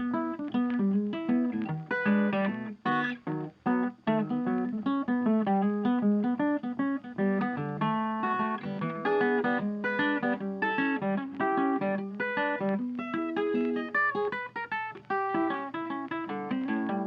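Background blues music led by acoustic guitar, with plucked and strummed notes.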